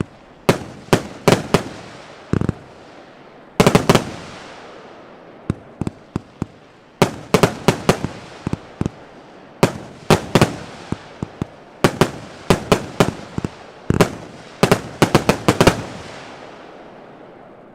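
Evolution Fireworks Tukkerbox 1 firework going off: loud sharp bangs in irregular clusters, some in quick runs of several a second, each trailed by a fading echo. The bangs stop about sixteen seconds in and the echo dies away.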